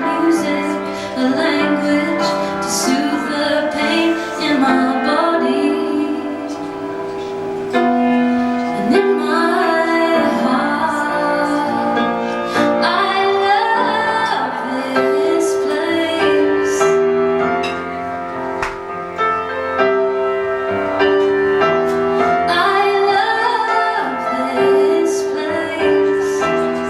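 Live song: a woman singing long held and sliding notes over a piano accompaniment.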